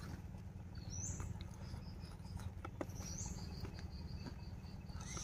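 Faint chewing with a few soft crunches of crispy fried tofu. Twice, a bird calls in the background, each call a short rising high note followed by a quick run of high pips.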